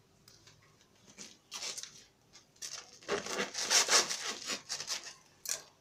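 Knife sawing through a round loaf of homemade wholemeal-and-semolina bread, a run of rasping strokes through the crust, loudest about three to four seconds in.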